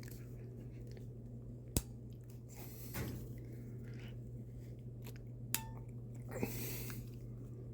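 Ratcheting crimping pliers being squeezed hard onto a ring terminal on thick 10-gauge wire, the ratchet giving a few sharp clicks a few seconds apart as it steps closed. A steady low hum runs underneath.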